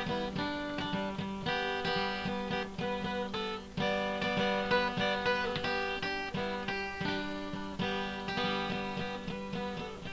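Instrumental background music on a plucked string instrument, a steady run of picked notes ringing over a sustained low accompaniment.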